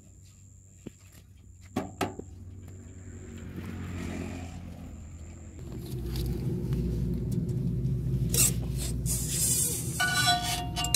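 A few knocks and clicks from a JCB 3DX backhoe loader's cab and steps as someone climbs aboard. Then, from about six seconds in, the machine's diesel engine running with a steady low rumble, and near the end a higher tone with several pitches joins in.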